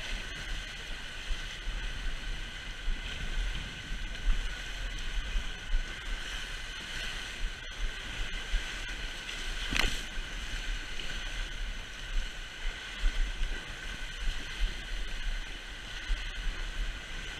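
Water rushing under a raft sliding down a fiberglass water slide, a steady rush with wind buffeting the camera microphone. One brief sharp hit about ten seconds in.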